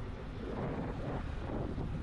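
Wind buffeting the microphone of a moving scooter, over a steady low rumble from the ride.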